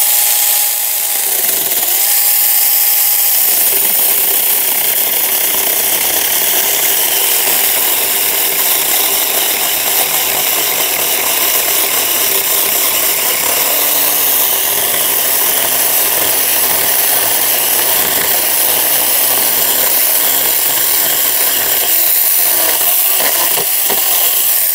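Saker battery-powered mini electric chainsaw running: a steady motor whine with a short break about a second and a half in, then the chain cutting through a log's side branch for about twenty seconds, cutting off suddenly near the end as the cut is done.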